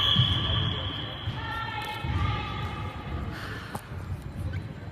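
Distant voices calling out across a large echoing sports hall, over a low steady hall rumble, with a sharp knock a little under four seconds in.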